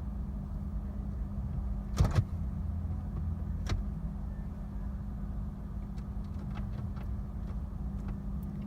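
A steady low hum inside a parked car's cabin, with a sharp double click about two seconds in and a single click near four seconds: the gear selector being pushed and moved while the car fails to register park and will not start.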